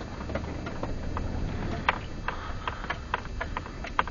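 Suzuki Grand Vitara's 2.5-litre V6 running low and steady while creeping over rough offroad ground, with irregular sharp clicks and knocks over it.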